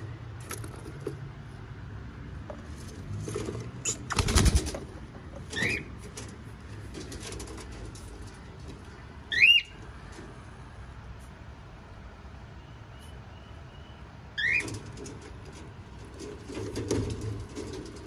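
Cockatiels giving three short rising calls a few seconds apart, the middle one loudest, with a short burst of rustling about four seconds in and more rustling near the end.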